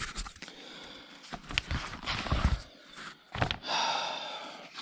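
Paper rustling as the pages of a car owner's manual are handled and turned, mixed with short, sharp breaths.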